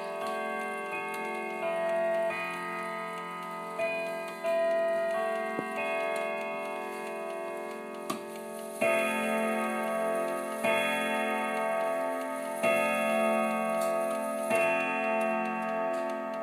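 Floor clock with twelve chime rods and twelve hammers chiming: the last notes of a chime melody ring out on the rods, then four deeper hour strikes about two seconds apart, each left ringing, with the clock ticking underneath.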